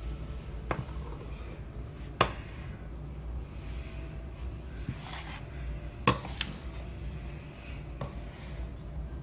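Metal bench scraper scraping across a granite countertop and cutting through a flour-and-water dough mix. It gives a few sharp knocks, the loudest about two seconds in and again about six seconds in, with rough scraping between them.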